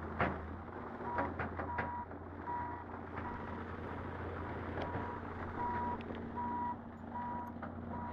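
A vehicle's reversing alarm beeping steadily, about one and a half short high beeps a second, starting about a second in. Under it runs the steady low drone of an engine.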